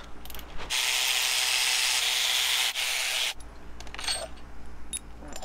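Cordless ratchet running for about two and a half seconds as it backs a 10 mm bolt out of a high-pressure fuel pump housing. A few light metallic clicks follow near the end.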